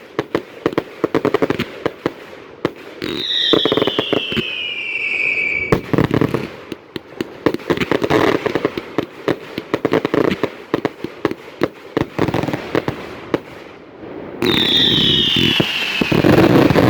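A professional 1.3G fireworks display firing continuously: a dense, rapid string of sharp bangs and crackle. Twice a long whistle falls in pitch above the reports, once at about three seconds and again near the end.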